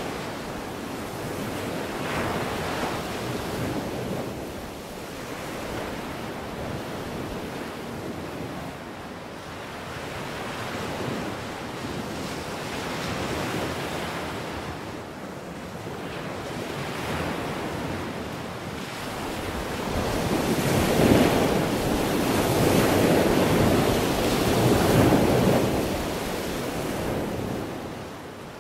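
Ocean surf crashing against a rocky shore in slow repeated surges, with wind buffeting the microphone. The loudest surges come in the last third.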